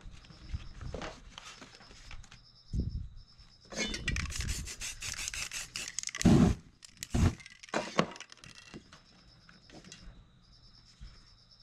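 Paper stencils being handled and peeled off a freshly sprayed canvas: a burst of crackly paper rustling from about four to six seconds in, followed by a few dull knocks and thumps, then lighter handling noises.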